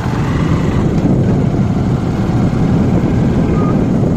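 Motorbike riding over a dirt track: a steady low rumble of engine and wind buffeting the microphone.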